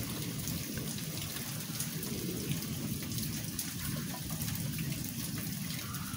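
Steady rain falling, with faint scattered drop ticks over a low, even rumble.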